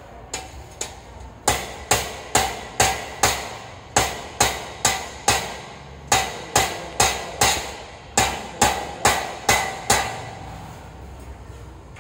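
Hammer blows, struck in quick runs of four or five at about two a second with short pauses between runs, each blow sharp with a brief ringing tail. Two fainter knocks come first.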